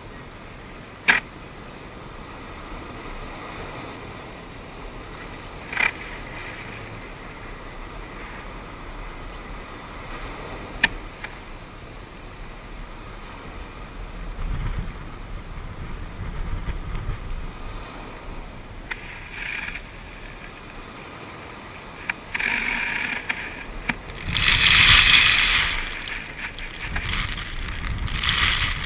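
Ocean water and wind noise, a steady wash with a few sharp clicks in the first half. Louder hissing surges of water build in the second half, the strongest about 25 seconds in.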